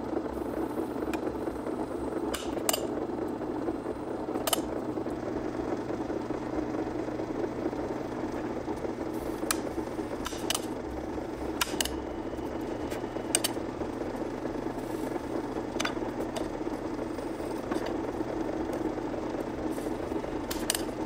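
Drill press running steadily with a microstop countersink cage, cutting countersinks for flush rivets in a thin rail plate. Scattered sharp clicks and ticks sound over the steady motor and cutting noise.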